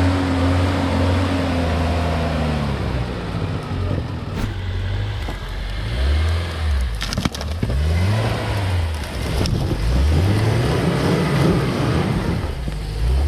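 Off-road vehicle engine revving up and falling back again and again, several times in a row, with a few sharp cracks and snaps in the middle.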